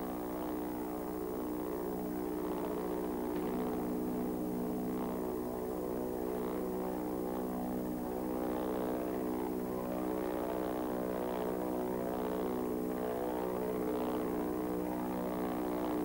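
Douglas A-1 Skyraider propeller planes in flight, their Wright R-3350 radial piston engines droning at a steady, even pitch.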